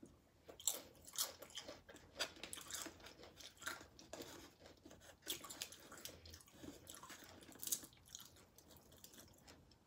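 A person chewing nacho tortilla chips, with irregular crisp crunches through the chewing, the sharpest about a second in and again near the end.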